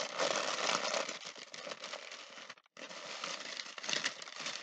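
Gift wrapping crinkling and rustling as it is pulled open by hand, with a brief pause a little over halfway through.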